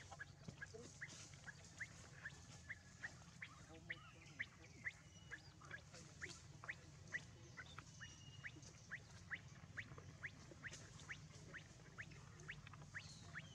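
Faint, steady series of short, high, falling chirps from a small animal, a few a second, repeating evenly throughout.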